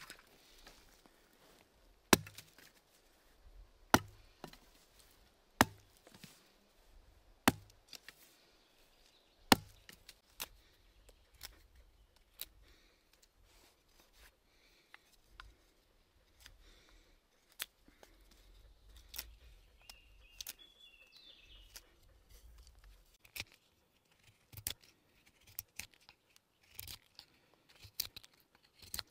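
Wood being chopped by hand. Five heavy, sharp blows come about two seconds apart, then lighter, quicker knocks and snaps follow in the second half.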